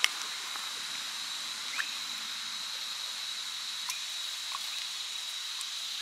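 Steady, high-pitched insect drone in summer heat, a single unbroken whine over a hiss, with a few brief faint clicks scattered through it.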